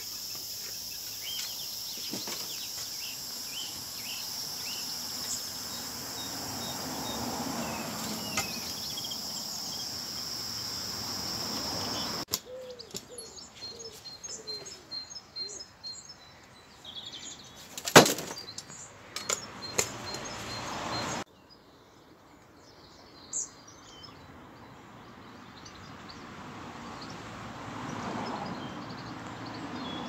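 Outdoor birdsong: small birds chirping, with a run of evenly repeated high notes in the middle stretch over a steady background hiss. A single sharp click stands out about eighteen seconds in, and the sound changes abruptly twice.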